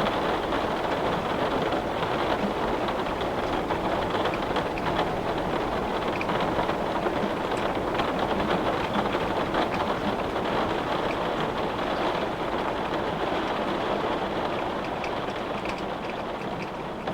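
Rain on a glass windowpane: a steady, dense hiss with scattered individual drops ticking against the glass, easing slightly near the end.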